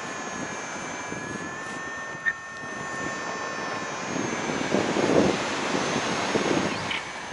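Steady engine drone with a high, even whine. A short sharp click comes a little over two seconds in, and rumbling wind noise on the microphone grows from about four seconds in.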